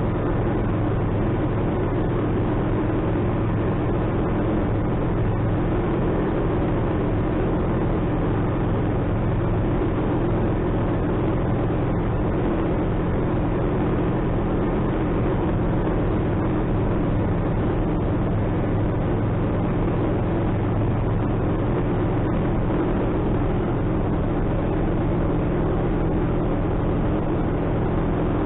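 Atec Zephyr ultralight's engine and propeller running steadily in level cruise, heard from inside the cockpit as an even, unchanging drone.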